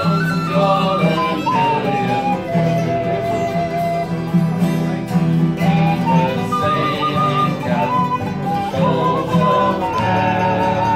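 Folk band playing an instrumental passage: tin whistle and harmonica carry the melody over strummed guitar and mandolin.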